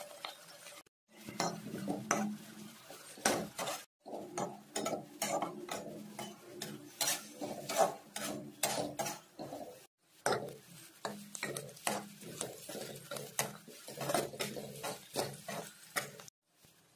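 Stainless steel spatula scraping and clicking against a non-stick pan as sliced onions are stirred, over a low steady hum. The sound drops out briefly a few times.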